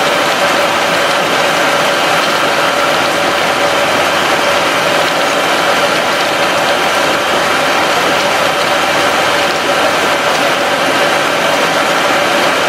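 Water boiling hard in a steel tank heated by a submerged SunCell reactor: a loud, steady noise with several constant tones running through it.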